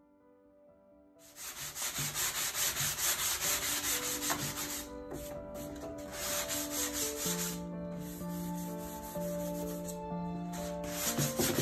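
Sanding the wooden slats of a newly built chair: a rough, scratchy rubbing in quick repeated strokes, starting about a second in and pausing briefly twice.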